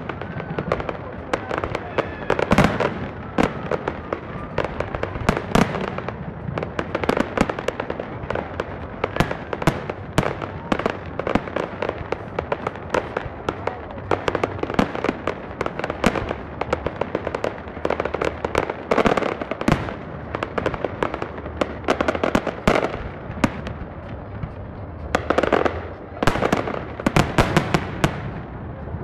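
Aerial fireworks display: shells launching and bursting overhead in a dense, continuous barrage of bangs and crackles, heaviest in a cluster near the end.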